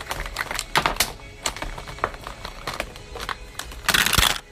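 Objects being handled close to the microphone: a run of irregular clicks and taps, then a louder rustling scrape about four seconds in.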